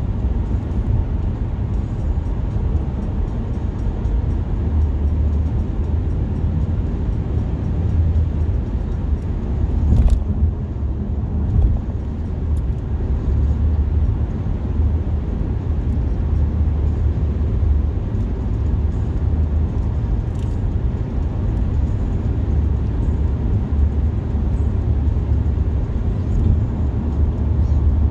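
Steady road and engine noise inside a moving car's cabin: a constant low rumble with an even hiss over it. There is a brief knock about ten seconds in and a faint click around twenty seconds.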